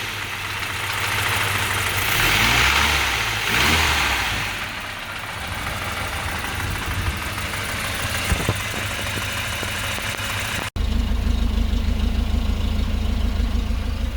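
Volvo B230F four-cylinder engine running warm, revved up and down twice early on, then settling to a steady idle; the owner suspects piston slap. About eleven seconds in the sound cuts out briefly and the idle comes back louder and evenly pulsing.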